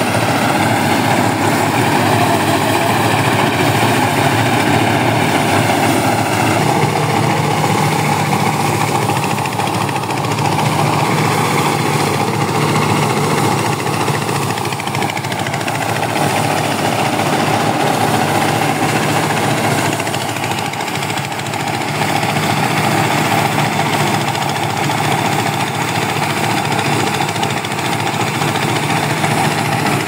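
Power paddy thresher running, its drum driven by a small single-cylinder diesel engine that runs steadily under load as bundles of rice are fed through.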